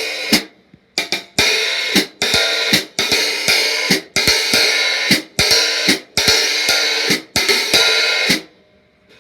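A pair of 14-inch old stamp K Zildjian Istanbul hi-hats played with a stick in a steady rhythm: a few short closed strikes, then repeated open washes, each cut off sharply by the hats closing, with closed strikes in between. The playing stops shortly before the end.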